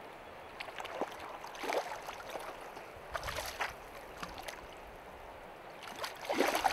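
Hooked trout thrashing at the surface of shallow river water, in four short bursts of splashing, the loudest near the end, over the steady rush of the stream.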